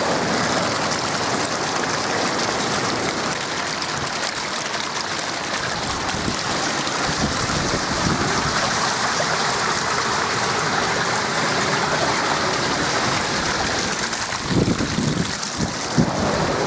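Steady rush of river water pouring through the open gates of a hydro dam. Near the end, wind buffets the microphone in a few low thumps.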